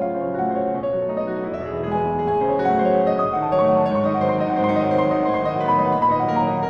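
Background piano music, a slow flowing melody over sustained chords.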